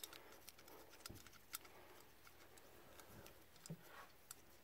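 Faint scattered clicks and light taps of a small metal carburetor and its fittings being handled in gloved hands, with a couple of slightly louder knocks about a second and a half in and near the end.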